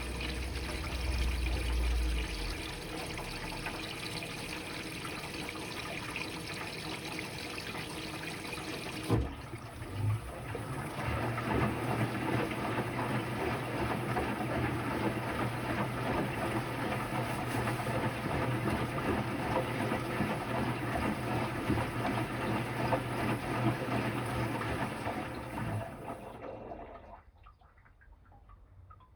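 Electrolux Quickwash commercial washing machine on a rinse, water rushing and splashing in the drum. About nine seconds in the sound breaks off and starts again with a steady low hum under the water, and it dies away near the end.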